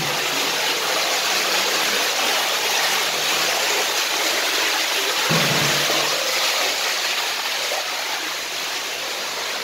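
Sewage water gushing up out of a toilet bowl and pouring over onto a flooded tiled floor, a steady rushing. The sewer line is backing up under heavy rain, forcing water and waste out through the toilet.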